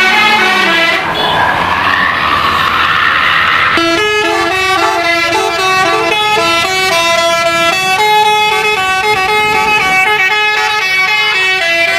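Telolet basuri musical bus horn playing a tune in quick stepped notes, several tones sounding together. About a second in, a rising sweep runs for nearly three seconds before the stepped notes resume.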